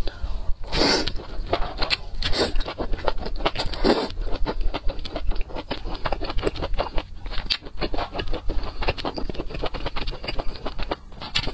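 Close-miked eating sounds: a few loud slurps of spicy noodles and meat in the first four seconds, then steady wet chewing full of small clicks and crackles.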